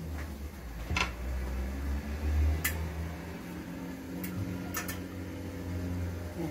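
A few light clicks and clinks of kitchen dishes and utensils over a steady low hum.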